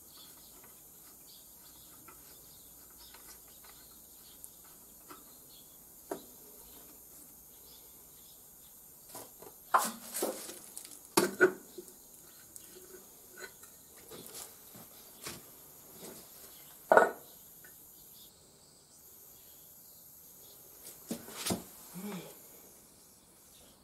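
Scattered metallic clinks and knocks from hands and tools working on a Yanmar diesel walking tractor's engine, with the sharpest few clanks about ten, eleven and seventeen seconds in.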